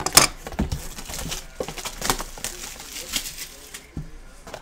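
Cardboard trading-card blaster boxes being handled on a table: irregular scuffs, light knocks and crinkling of the shrink-wrap as one box is pushed aside and the next picked up.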